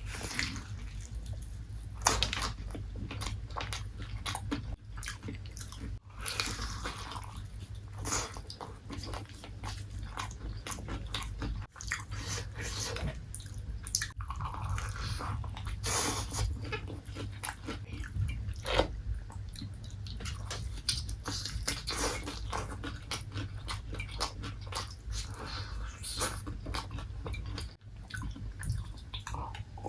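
Close-up eating sounds: crispy KFC fried chicken being bitten and chewed, the coating crunching and crackling in quick irregular clicks, over a steady low hum.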